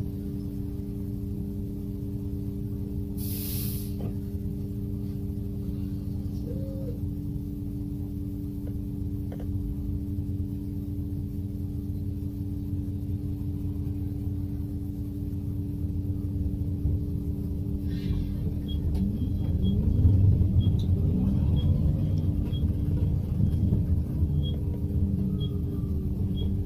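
Inside an electric low-floor midibus: a steady hum and rumble while it waits, with a short hiss of air from the brakes about three seconds in. Near the end the electric drive whines up in pitch as the bus pulls away, with a light ticking about once a second.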